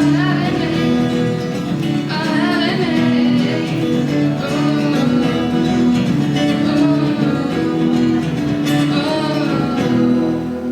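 Live song: a singing voice over acoustic guitar accompaniment, the music continuous and loud.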